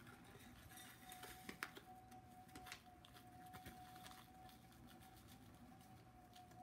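Very faint rustling of a bag and light scattered clicks of a spoon scooping into a stainless steel measuring cup, over a faint steady hum.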